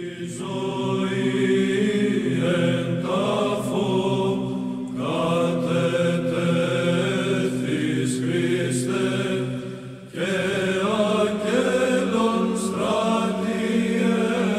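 Chanted church hymn: voices singing a slow melody over a steady held drone note, in phrases that break off about five and ten seconds in.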